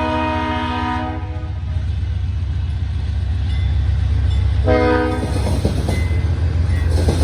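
Diesel freight locomotive's multi-chime air horn: a long blast ends about a second in, and a short toot sounds about five seconds in, over the steady low rumble of the passing train.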